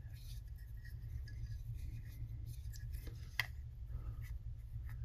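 Faint scratchy rubbing of fingers twisting fur dubbing onto fly-tying thread, with one sharp tick about three and a half seconds in, over a steady low hum.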